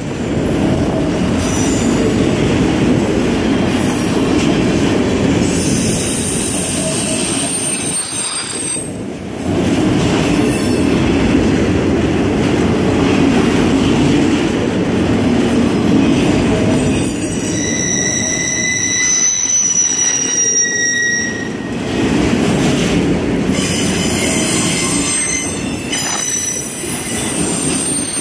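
CSX autorack freight cars rolling past close by: a steady rumble of steel wheels on rail, dipping briefly a couple of times. High, thin wheel squeals come and go over it and are clearest about two-thirds of the way through.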